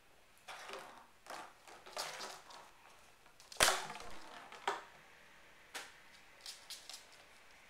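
Empty plastic water bottle crinkling and clattering as a puppy pushes it around, a series of irregular sharp crackles with the loudest about three and a half seconds in.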